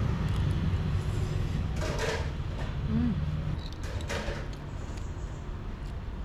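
Two short clinks of a metal spoon against dishes and a glass condiment jar, about two and four seconds in, over a steady low rumble.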